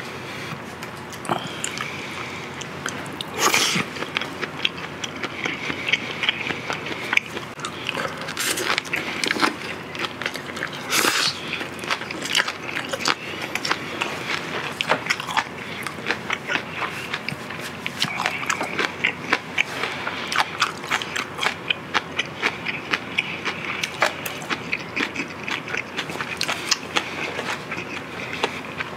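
Close-miked chewing of grilled marinated pork ribs: a steady run of small wet mouth clicks, with a few louder sharp bites about three and a half, eight and a half and eleven seconds in.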